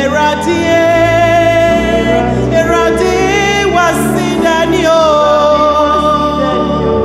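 A gospel worship song: a solo voice sings long held and sliding notes over steady instrumental backing.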